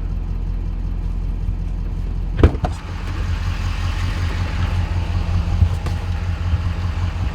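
Diesel pickup truck engine running with a steady low rumble, and one sharp knock about two and a half seconds in.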